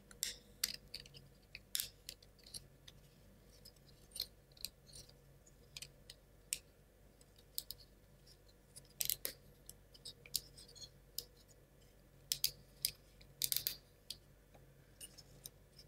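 Small wooden parts of a Ugears mechanical model kit clicking and tapping against each other as they are fitted together by hand: scattered faint clicks, with a few louder ones about nine seconds in and a quick cluster around thirteen seconds.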